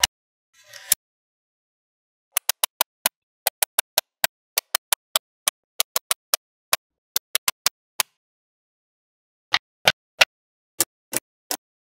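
Small magnetic balls clicking sharply as they snap together one at a time, in a quick run of about two dozen clicks from about two to eight seconds in, then a handful more spaced out near the end. A brief faint rustle comes just before the first click.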